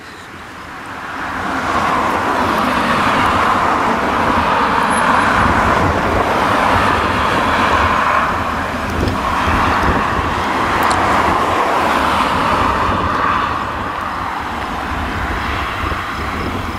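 Fendt tractor running at working speed while pulling a twin-rotor hay rake through cut hay: a steady engine rumble under a broad, rushing hiss from the rotors and tines sweeping the hay. It swells about a second and a half in and eases slightly near the end.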